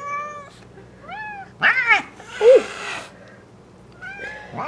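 Bengal cats meowing: several short calls that rise and fall in pitch, with a brief breathy hiss about two seconds in.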